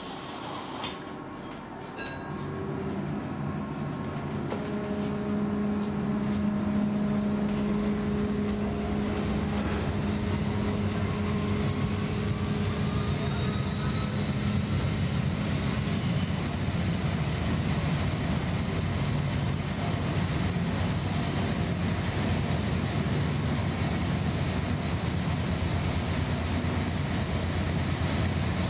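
Gothenburg M31 tram pulling away from a stop, heard from inside: a click about two seconds in, then a hum and a whine rising in pitch as it accelerates. It settles into a steady rumble of wheels on the rails at speed.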